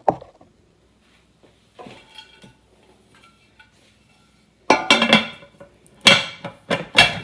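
Kitchen dishes and cookware clinking and clattering: a light clink with a short ring about two seconds in, then a run of loud clanks from about five seconds in.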